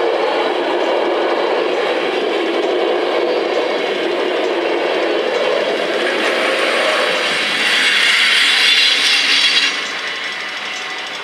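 NS ICRm intercity coaches rolling past over a level crossing: steady rumble and clatter of wheels on rail, turning to a brighter hiss as the last coach passes and dropping away suddenly near the end. The crossing's warning bells ring on behind it.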